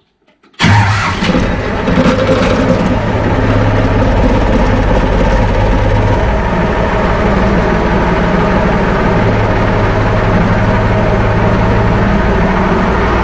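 IMT tractor's three-cylinder diesel engine starting about half a second in and settling into a steady idle, heard from inside the cab.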